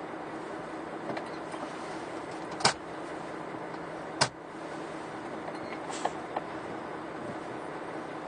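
Steady hum and noise of a ferry's car deck as vehicles drive off, with two sharp knocks about two and a half and four seconds in and a couple of lighter clicks around six seconds.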